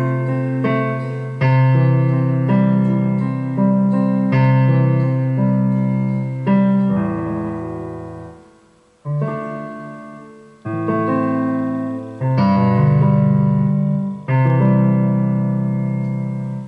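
Electric guitar played through a Roland guitar synthesizer set to a piano voice: a slow series of piano chords, each struck and left to fade, with a short break about nine seconds in.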